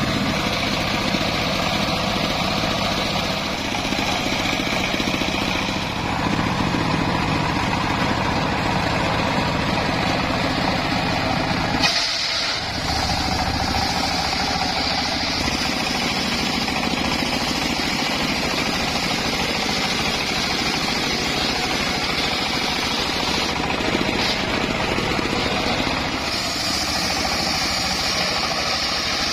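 Engine-driven homemade circular saw running steadily, a continuous motor drone with a brief break about twelve seconds in and a higher-pitched whine coming in near the end.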